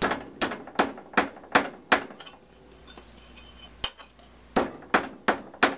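Claw hammer striking aluminum tubing clamped in a steel bench vise, bending it over: six quick blows at about two and a half a second, a lull of nearly two seconds broken by one blow, then four more quick blows, each with a short metallic ring.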